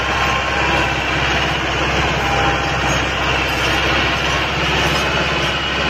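Massey Ferguson 385 tractor's diesel engine running steadily and hard, pulling a heavily loaded trolley.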